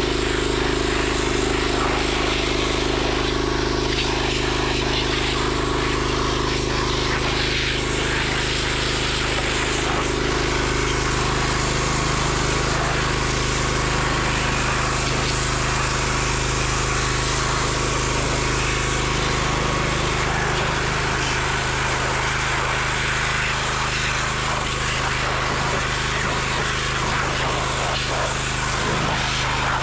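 Pressure washer running steadily, its motor humming under the hiss of the water jet blasting grime off a diesel engine block.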